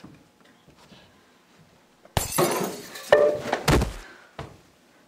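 Flower vases knocked off a bench and a person falling to the floor: a sudden loud crash with a shattering, glassy sound about two seconds in, then a few more clattering knocks and a heavy thud.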